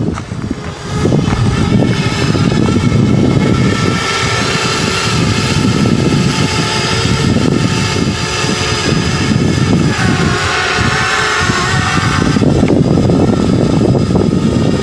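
Parrot Bebop 2 quadcopter's propellers whining in flight: several tones that shift in pitch, grow brighter about ten seconds in, then fall back as a low rumble rises near the end.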